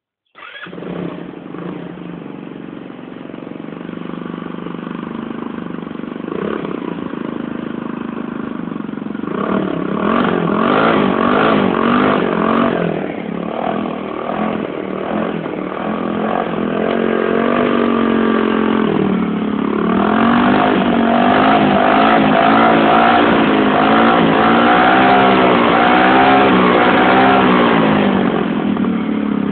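Tauris Mambo 125 scooter engine starting just after the beginning and settling to an idle. From about nine seconds in it is revved again and again with the throttle, its pitch rising and falling with each blip, most strongly in the last third.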